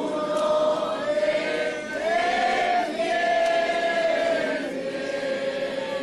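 Voices singing a slow hymn in unison, holding long notes that glide slightly between pitches.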